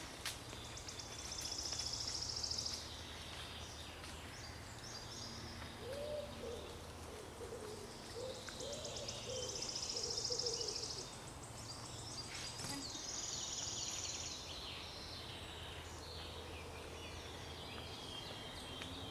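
Woodland birds singing: high trilled phrases that come back three times, and a lower-pitched series of calls in the middle, over a steady low hum.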